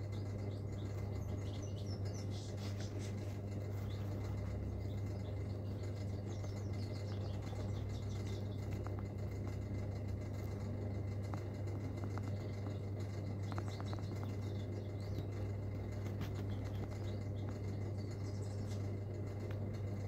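A steady low hum under faint, high chirps of a small caged songbird, heard near the start, about five seconds in and again near the end, with a few light clicks in the middle.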